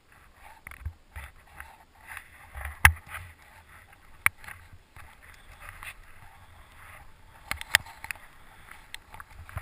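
Skis swishing through deep powder snow in uneven surges as the skier turns, with a few sharp knocks, the loudest about three seconds in and two close together near the end.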